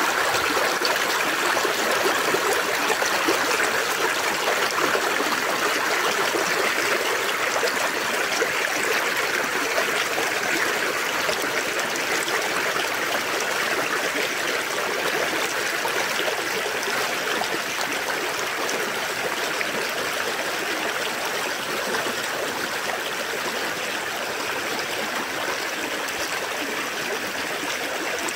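River current babbling and washing over stones, a steady flow of water that eases slightly in the second half.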